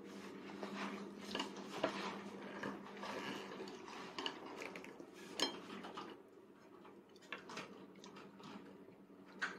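Faint scattered clicks and taps of a toddler's plastic training chopsticks against a plate while picking up rice, with a steady low hum underneath.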